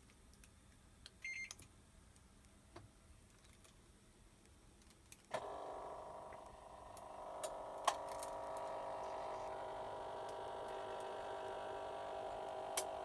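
Hitachi BeatWash BW-DV80A washing machine: a brief electronic beep about a second in, then about five seconds in a steady whine of several tones starts suddenly right after start is pressed, with a couple of sharp clicks over it. The owner wonders whether this whine is abnormal.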